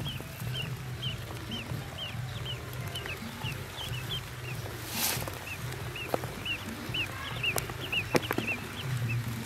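Ducklings peeping: a steady string of short, high cheeps, about three a second. A brief rustle comes about five seconds in, and a few sharp clicks follow in the second half.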